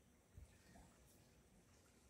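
Near silence: faint background with one soft low thump about half a second in.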